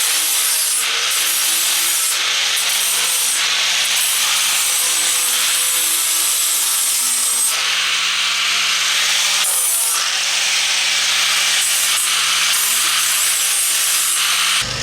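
Steady scratchy rubbing on wood, broken by a few brief pauses.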